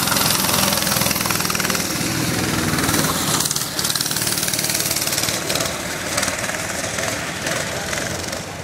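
Go-kart engine running close by as the kart passes, then fading as it pulls away.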